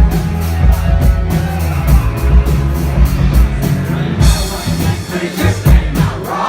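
Live rock band playing, with a steady drum beat over a heavy bass line.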